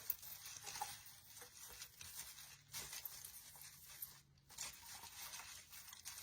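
Faint rustling and crinkling of artificial pine branches and ornament-ball picks being handled and pushed into place.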